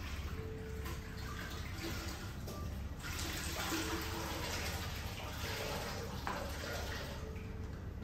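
Water running in a steady rush, strongest from about three seconds in until about seven seconds, over a low steady hum.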